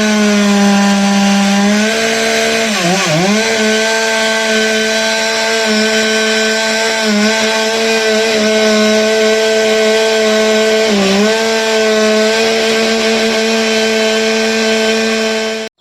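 Two-stroke chainsaw running at high revs, cutting through conifer wood. Its pitch dips briefly twice as it bogs down in the cut, and it cuts off suddenly near the end.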